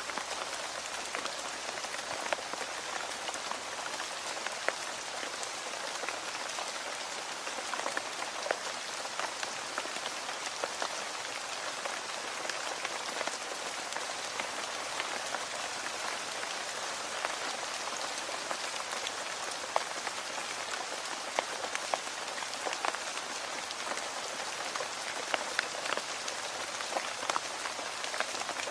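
Steady rain falling, a constant hiss with scattered louder individual drops ticking on a surface.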